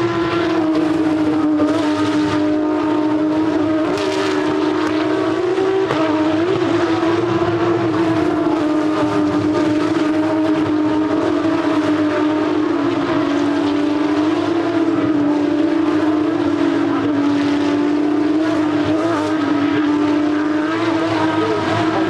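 Porsche 911 GT3 Cup race cars' flat-six engines running at high revs, a continuous steady drone with cars passing by.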